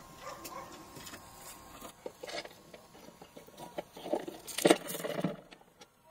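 Metal chain links clinking and a small chain clip clicking as chains are hooked onto the rim of a metal satellite dish. Scattered light taps, with a louder clatter a little under five seconds in.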